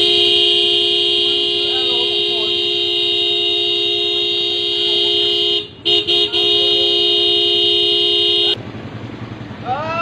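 Vehicle horn held down in one long steady blast, let off briefly a little past halfway with two short toots, then held again until it cuts off near the end. It is being sounded without let-up at a motorcycle with sidecar parked across a narrow lane.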